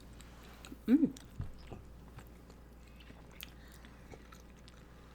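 Close-miked eating: biting and chewing a soft, milky Indian sweet, with small wet mouth clicks throughout. About a second in comes the loudest moment, a brief pitched sound followed by a low knock.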